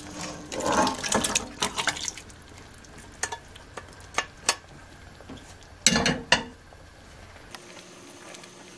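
Thick mutton curry being spooned into a steel pot of bubbling dumpling broth: wet splashes and utensils knocking against the metal pot in the first two seconds, a few light clinks, then a louder splash with scraping about six seconds in.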